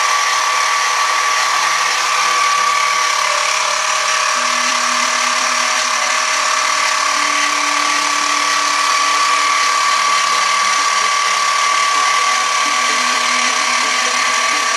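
Sieg X2 CNC mini mill running a program: the spindle motor gives a steady high whine over a hiss while the end mill cuts a metal part under a coolant spray, with lower tones coming and going.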